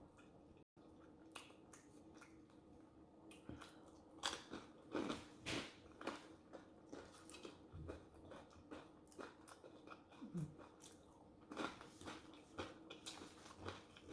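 Close-miked chewing and biting with crunchy mouth sounds, a few scattered strokes at first and dense from about four seconds in, over a faint steady hum.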